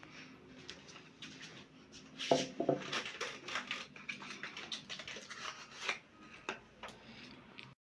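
A cardboard pill box being opened and handled: a run of quick clicks and crackling rustles of card and packaging, loudest a couple of seconds in. It cuts off suddenly near the end.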